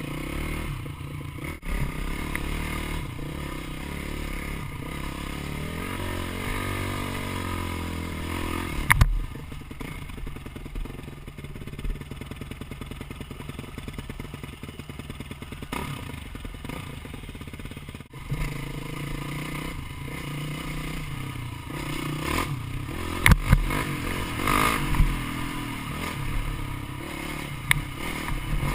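Dirt bike engine running while it is ridden, its note rising and falling with the throttle. There are sharp knocks and clatter about nine seconds in and again several times in the last few seconds.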